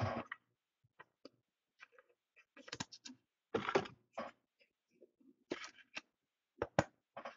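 Trading cards and plastic card holders being handled: scattered light clicks and short rustles at an irregular pace, with a few sharper clicks near the end.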